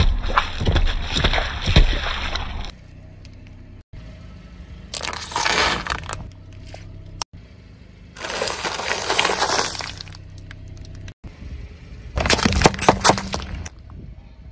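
Car tyre rolling over and crushing objects in four bursts of cracking and crunching: small drink cartons squashing, plastic trays of wafer rolls crackling, and plastic dessert cups splitting and splattering near the end.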